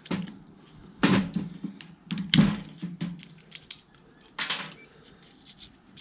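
Fine copper wire and small parts of an inverter microwave's circuit board being handled and pulled apart: scattered light clicks and ticks, with three short, louder rustles.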